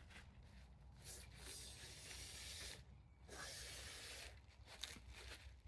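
Aerosol chain cleaner sprayed onto a motorcycle chain in two hissing bursts, a longer one about a second in and a shorter one after a brief pause.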